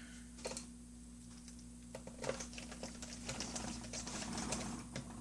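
Faint, irregular small plastic clicks and taps as a laptop LCD bezel is handled and pressed into place, a little busier in the second half, over a low steady hum.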